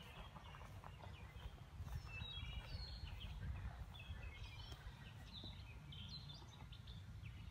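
Faint, scattered chirps of small birds over a steady low outdoor rumble.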